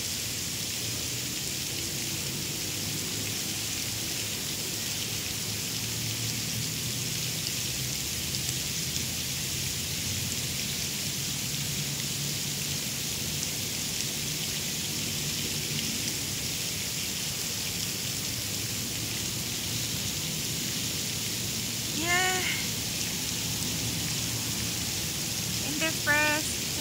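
Steady outdoor background hiss with a faint low hum underneath. A short vocal sound about three-quarters of the way through, and a few more right at the end.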